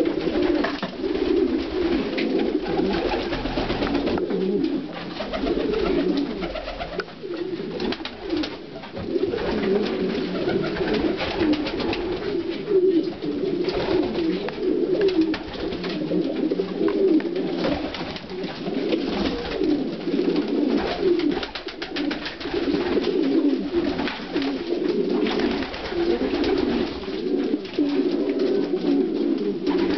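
Many domestic pigeons cooing in an enclosed loft, their calls overlapping into a steady chorus.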